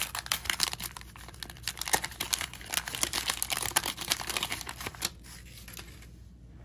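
Waxed-paper wrapper of a 1989 Topps hockey card pack crinkling as it is opened by hand and pulled off the cards. The crackling stops about five seconds in.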